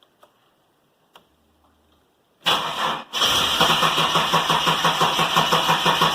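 Holden VS Commodore's starter cranking the engine, starting suddenly about two and a half seconds in, breaking off briefly, then cranking on steadily with an even pulse; the engine doesn't catch, a car long off the road with a fuel-supply fault still not firing.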